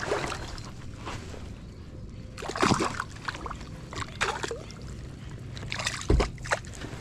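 Water splashing and sloshing beside a kayak in three short bursts, with a dull knock against the hull about six seconds in.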